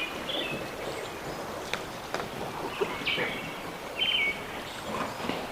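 Wild birds chirping in short calls, one clearest about four seconds in, over a steady hiss of outdoor background noise, with a few sharp clicks near the middle.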